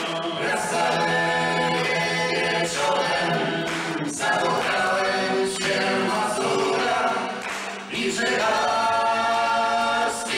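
A small group of voices singing a song together, accompanied by acoustic guitars, in phrases with brief breaks about four and eight seconds in.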